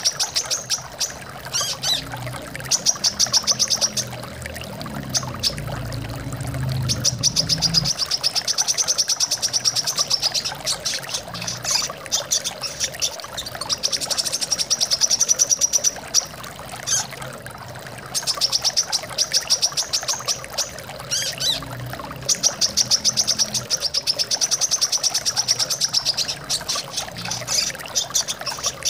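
Brown-throated sunbird song: rapid, high-pitched trills in bursts of one to three seconds, repeated every few seconds, over the steady sound of flowing water.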